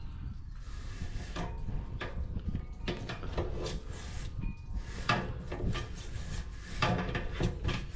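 Irregular scraping and clattering knocks from hand work at the drained RV water heater tank, as scale debris is cleared out.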